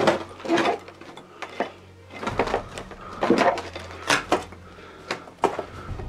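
Footsteps on loose rubble and broken debris, with a dozen or so irregular knocks and clinks of shifting stones and wood.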